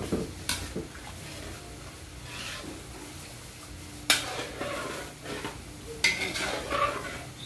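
Metal ladle stirring and scraping through simmering kare-kare sauce in a metal wok, with three sharp clanks of the ladle against the pan.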